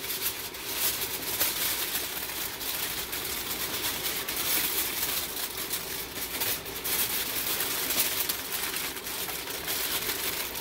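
Aluminium foil crinkling and rustling continuously as it is folded and pressed tightly around a smoked pork shoulder.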